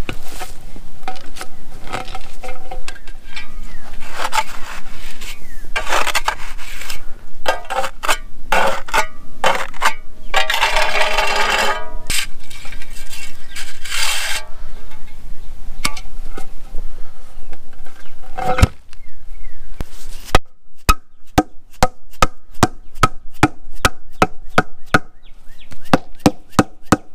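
A hand tool scraping and spreading gravel and soil under a concrete paver, with scattered knocks. Then, from about two-thirds of the way in, a steady run of sharp taps, about three a second, as a mallet seats the paver.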